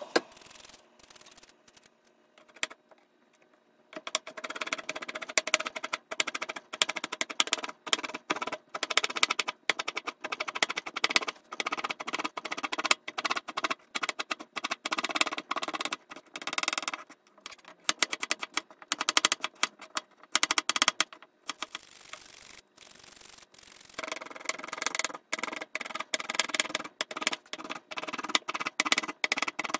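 Kitchen knife chopping quickly through carrot slices on a plastic cutting board, cutting them into thin julienne strips. The chops come in long fast runs of rapid taps on the board, broken by short pauses.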